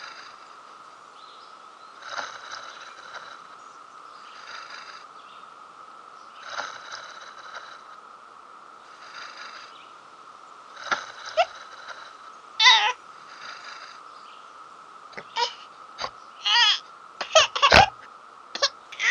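Cartoon sound effects of a sleeping baby dragon: soft, regular breaths about every two seconds, then from about halfway in, high-pitched cat-like mews and squeaks that come quicker and louder toward the end as the dragon stirs.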